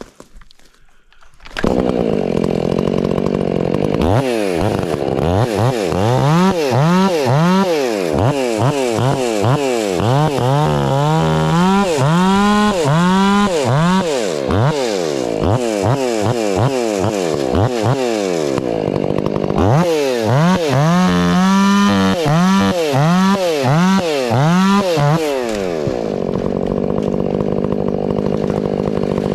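Chainsaw comes in loud about a second and a half in and cuts wood, its engine speed dipping and climbing back over and over as the chain bites. It runs steadier for the last few seconds.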